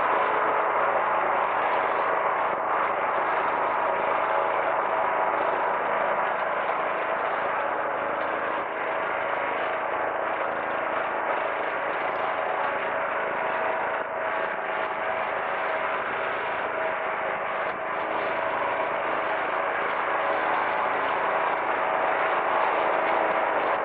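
Boeing C-17 Globemaster III's four Pratt & Whitney F117 turbofan engines at takeoff power as the airlifter lifts off and climbs away: a steady jet noise with high whining tones over it.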